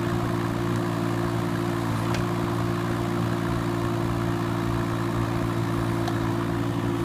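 Kubota K008-3 mini excavator's diesel engine running at a steady speed while the arm and bucket are worked, a constant even hum with no change in pitch.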